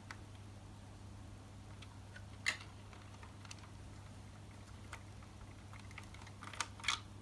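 Plastic brick model being handled, giving a few light clicks and taps: the loudest about two and a half seconds in, two more close together near the end. A low steady hum runs underneath.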